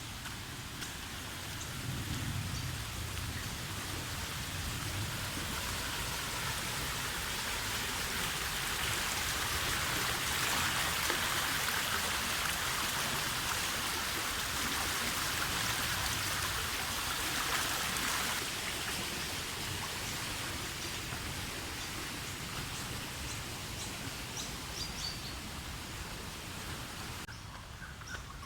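Creek running high with storm runoff after a long dry spell, rushing water making a steady hiss. It grows louder through the middle and eases off near the end.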